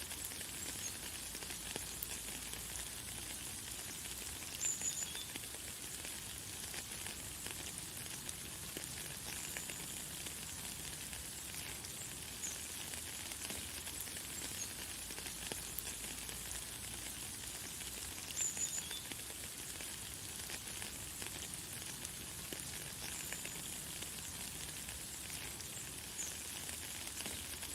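Light, fine rain falling steadily, with short high bird chirps every few seconds, the clearest about five seconds in and again about two-thirds of the way through.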